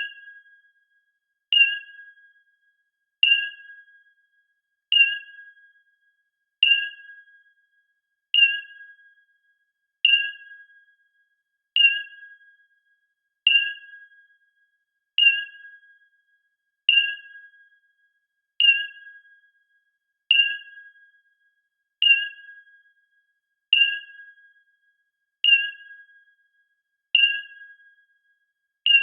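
Electronic sonar/radar screen beep: a short ping repeating evenly about every 1.7 seconds. Each ping starts sharply, pairs a higher warbling tone with a lower steady one, and fades away over about a second.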